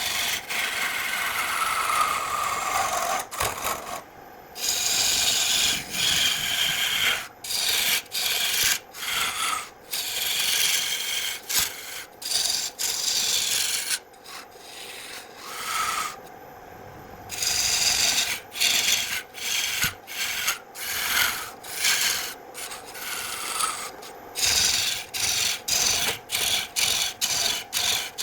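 Wood being scraped or rasped by hand in repeated strokes, some long and some short, with a few brief pauses and quicker, shorter strokes near the end.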